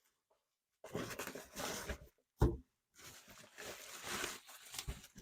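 Rustling of K-pop album packaging as the albums are handled, in two stretches, with a sharp knock about two and a half seconds in and a lighter knock near the end.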